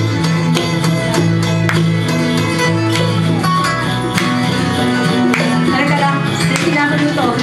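Live acoustic band music: several acoustic guitars strumming and picking over sustained low bass notes.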